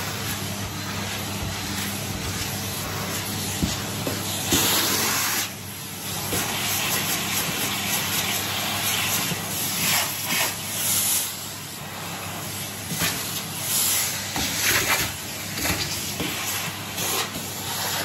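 Henry cylinder vacuum cleaner running: a steady motor hum under a loud suction hiss that swells and dips in repeated surges.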